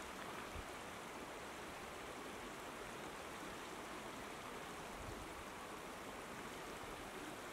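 Shallow stream running over stones: a steady, faint rush of water.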